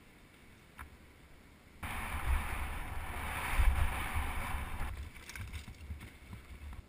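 Wind rushing over a helmet camera's microphone with deep rumbling thuds as a mountain bike rolls fast down a dirt trail. It starts suddenly about two seconds in, loudest around the middle, then eases about five seconds in to lighter knocks.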